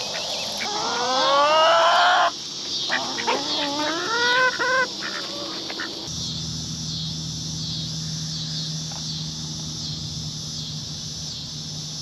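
Chickens calling: two bouts of rising squawks in the first five seconds over a steady high chorus of insects. About halfway through the calls stop and a low steady hum comes in.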